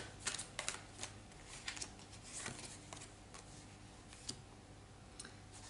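Tarot cards being handled and a card laid down on a wooden table: faint, scattered soft clicks and slides of card stock, several close together in the first second, then a few more spaced out.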